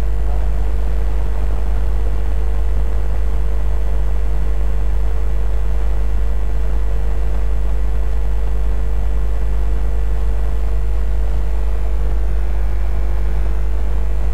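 Steady deep rumble with a faint constant hum above it, unchanging in level throughout.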